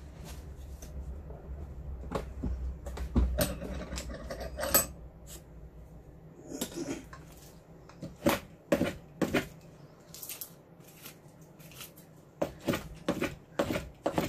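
Wood and tools being handled on a workbench: a cricket bat's willow blade and a spokeshave knocking and clicking irregularly, with a few short scrapes, and a low hum that fades out in the first few seconds.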